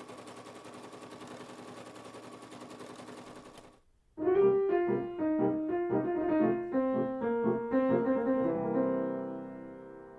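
Bernina domestic sewing machine stitching fast and steadily while free-motion fill is quilted, stopping abruptly about four seconds in. After a brief pause a short piano tune plays, ending on a held chord that fades.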